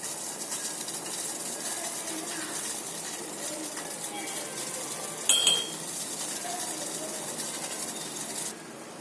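Food sizzling in a pan on the stove, a steady hiss, with a metal utensil clinking against the pan; one sharp, ringing clink about five seconds in. The hiss cuts off abruptly near the end.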